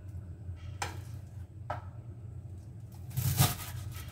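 Chef's knife cutting a bundle of garlic chives on a cutting board: two light knife taps, then a louder slicing cut through the bundle about three seconds in, over a steady low hum.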